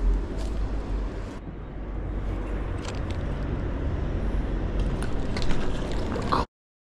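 Steady low outdoor rumble of urban background noise, with a few faint clicks. It cuts off abruptly near the end.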